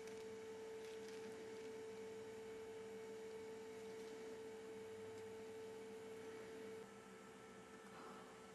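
A faint, steady single-pitched electrical hum that stops abruptly about seven seconds in.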